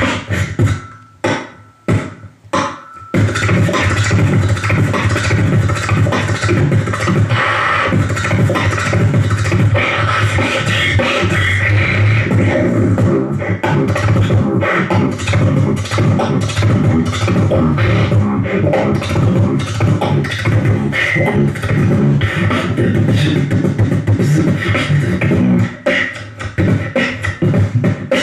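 Human beatboxing into a handheld microphone, amplified: fast vocal drum sounds (kicks, snares and hi-hat clicks) in a steady rhythm over a held low tone. About a second in the beat thins to a few separate hits, then picks back up at full density around three seconds in.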